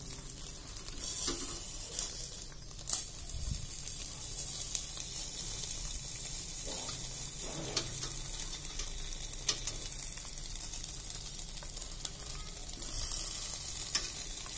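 Banana-leaf-wrapped fish parcels (pepes) sizzling steadily on a hot stovetop grill rack as the moisture in the leaves cooks off, with a few sharp clicks of metal tongs against the rack.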